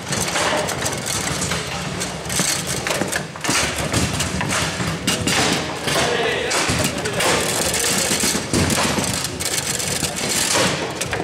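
Table football in play: rapid irregular clacks and knocks as the ball is struck by the figures and hits the table walls, with rods sliding and banging, over a hum of voices in the hall.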